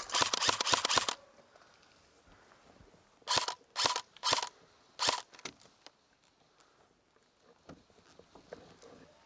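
Airsoft gun fire: a rapid full-auto stream of shots that stops about a second in. Four short, sharp shots or bursts follow near the middle, roughly half a second apart.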